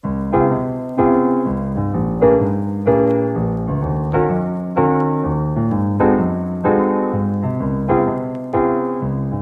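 Background music of keyboard chords, each struck and left to fade, one after another about every half second to a second.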